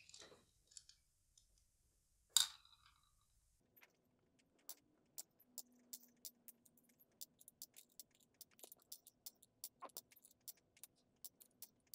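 Shotgun BB pellets dropped one at a time onto the pan of a small digital scale: an irregular run of small sharp clicks, a few a second, with a single louder click about two seconds in.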